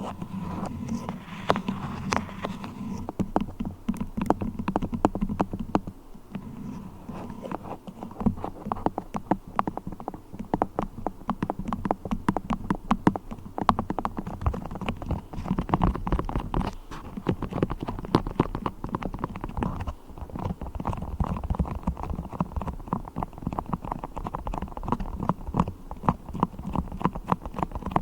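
Beeswax being handled for ASMR: a fast, irregular stream of sticky clicks and crackles.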